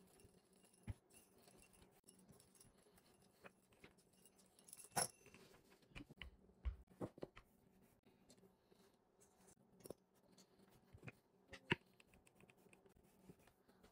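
Near silence with scattered light taps and clicks from hands working pastry dough on a silicone baking mat, as a wooden rolling pin and a metal pastry wheel are used and set down. The sharpest click comes about five seconds in, another just before the end.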